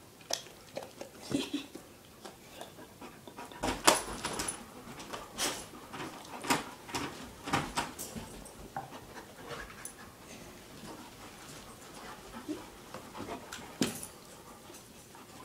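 A Bernese Mountain Dog mouthing a training dumbbell, with scattered sharp clicks and knocks and some panting and whimpering. The knocks come most often in the first half and thin out later, with one more sharp one near the end.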